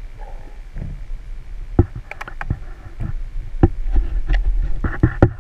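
Muffled underwater sound picked up through a GoPro's waterproof housing as a largemouth bass is held and handled by the lip: a steady low rumble of moving water, with a run of sharp clicks and knocks from about two seconds in that come thicker near the end.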